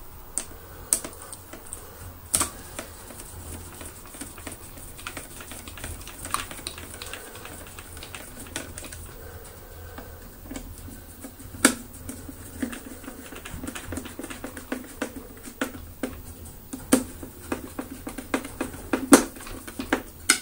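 Hand screwdriver driving screws into the plastic wiring cover on a Dyson DC24's ball housing: irregular clicks and ticks of the driver and plastic parts, with a few louder knocks.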